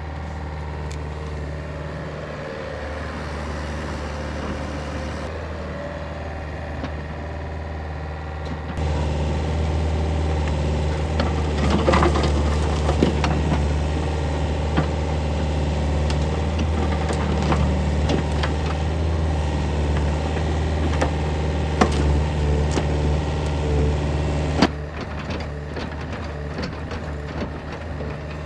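Yanmar VIO50 mini excavator's diesel engine running steadily under work, louder through the middle stretch, with scattered sharp clicks and cracks over the drone.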